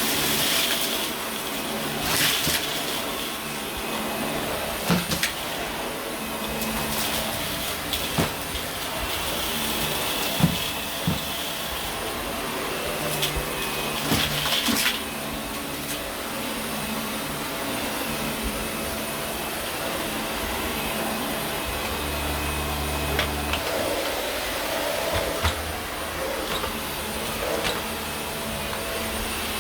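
Dyson vacuum cleaner running steadily over carpet, with occasional sharp clicks and knocks from the head or from debris being picked up.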